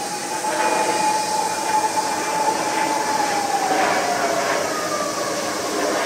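Jet airliner passing overhead: a steady engine whine over a broad rushing noise, the whine dropping in pitch about four seconds in as the plane goes by.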